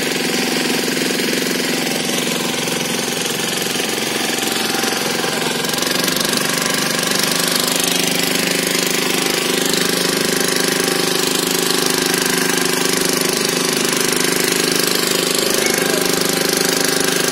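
Small wooden motorboat's engine running steadily under way, a little louder from about six seconds in.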